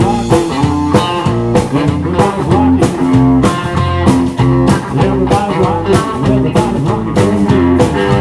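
Live rock band playing an instrumental passage: electric guitar over bass guitar and drums, with a steady beat.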